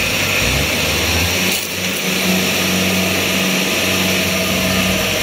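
Engine of a crawler rice combine harvester running steadily under load while the machine is bogged down in deep paddy mud, on a tow chain. A steady low engine tone sets in about a second and a half in.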